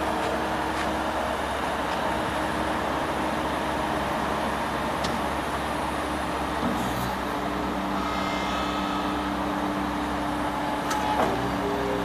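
Terex TXV60 skid steer's diesel engine running steadily while the hydraulics raise the loader arms and bucket; the engine note shifts about seven seconds in.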